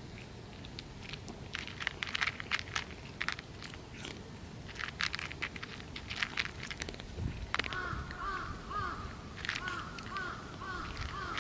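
A cat crunching dry food, with many short irregular crunches and clicks. From a little past halfway, a bird calls over it with a quick run of short repeated chirps.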